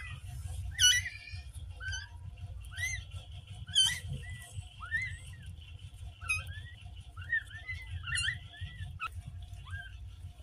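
Newborn kitten mewing: a run of short, high, squeaky cries that rise and fall, about one a second or a little faster, two of them louder than the rest.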